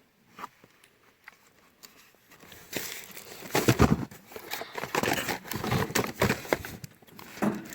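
Product packaging being handled and rummaged through, crinkling and rustling with sharp clicks, starting about three seconds in.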